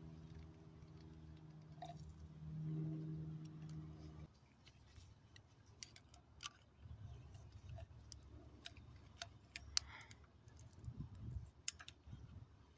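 A faint steady hum that cuts off about four seconds in, then scattered light clicks and taps of hand tools on metal in an engine bay.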